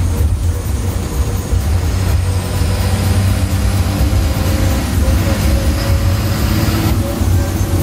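Ashok Leyland diesel bus running on the road: a steady, loud low drone of engine and road noise.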